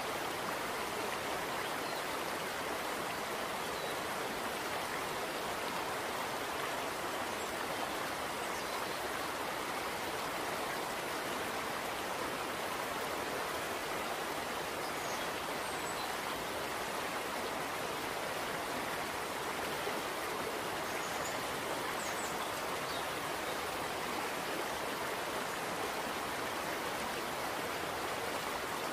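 Steady, even rushing noise like running water or rain, unchanged throughout.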